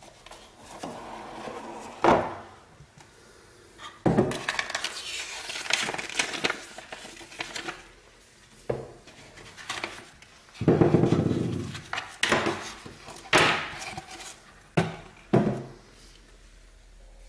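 Unboxing handling noise: a cardboard box lid coming off and a flashlight stun gun, its charger and cable being lifted out and set down on a table. A series of knocks and taps, with a longer scraping rustle a little past the middle.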